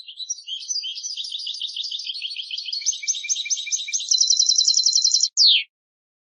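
European goldfinch singing: a fast run of liquid, twittering notes that speeds into an even trill about four seconds in, ending with one downward-slurred note.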